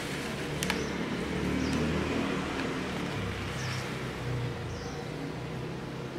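Outdoor background: a steady low hum, a sharp click just under a second in, and a few short high chirps scattered through.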